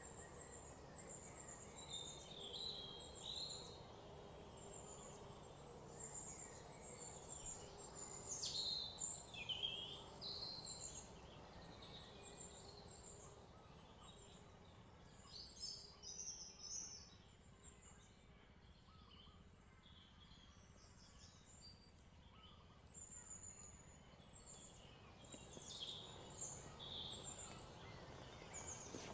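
Birds chirping: short, high calls scattered over a faint steady outdoor background. They come thickest about a third of the way in and again near the end.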